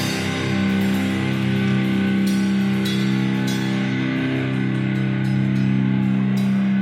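Rock band playing: distorted electric guitar holding long sustained notes over drums, with several cymbal crashes.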